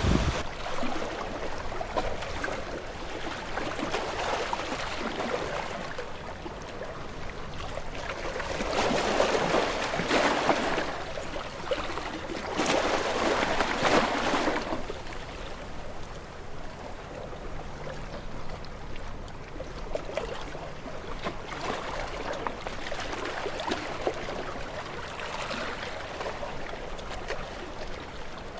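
Water splashing and flowing, with two louder swells about a third and halfway through.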